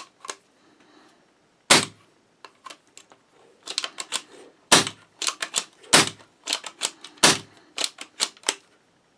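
Amoeba Striker bolt-action airsoft rifle, newly fitted with a Mancraft HPA kit, being test-fired: about four sharp pops about a second apart, with lighter clicks of the bolt being worked between them. The rifle is firing, so the installed kit works.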